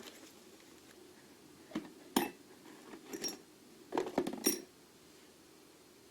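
Loose metal lathe tooling clinking and knocking as pieces are handled in a toolbox: a few sharp clinks about two seconds in, a couple more around three seconds, and a quick cluster near four seconds, over a faint steady hum.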